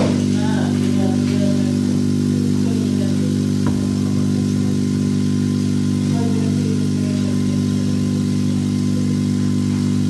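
Refrigerator compressor running on a bench test rig, a loud steady hum that holds unchanged, with one faint click about four seconds in.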